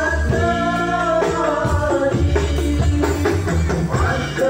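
Hadrah-style devotional music: a man's voice singing through a microphone over frame drums (rebana) and a darbuka beating a steady rhythm.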